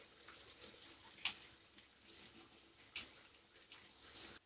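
Chopped onions sizzling in hot oil in a kadhai over a high gas flame: a faint, steady hiss with a couple of sharp pops. It cuts out abruptly near the end.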